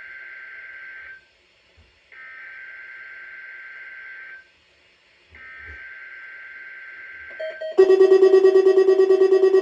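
NOAA Weather Radio SAME header for a Required Weekly Test: three bursts of buzzy, warbling digital data tones, each about two seconds long with a short gap between them. Near the end, a much louder electronic alert starts, beeping in rapid pulses.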